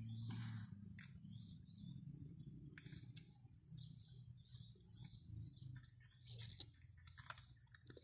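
Faint chewing and crunching of several cats eating scraps from a plate, with a few birds chirping faintly, over a low steady hum.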